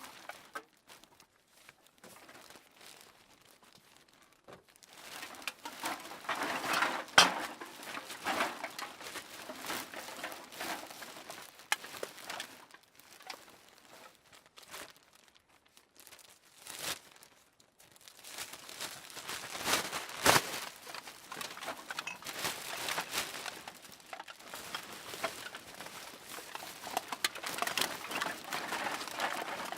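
Cans being put into a bag: irregular rustling and crinkling of the bag, with a few sharp clinks and knocks as cans land against each other, and two quieter pauses between handfuls.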